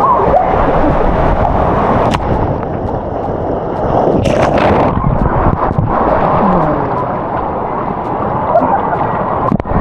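Rushing water and heavy rumbling close on the microphone while riding down a water slide, with a couple of brief sharper bursts around two and four and a half seconds in.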